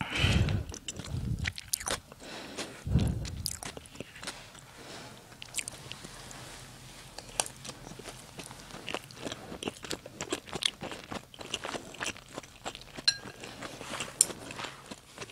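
Close-miked chewing of a mouthful of smoked salmon and rice, with soft crunches and wet mouth clicks. A few dull low thumps come in the first three seconds.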